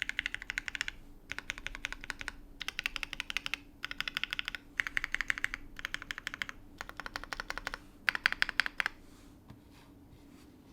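Typing on a PHX FE mechanical keyboard with lubed and filmed H1 switches, a carbon fibre plate and GMK keycaps. Keys are struck in quick runs of about a second each with short pauses between, and the typing stops shortly before the end.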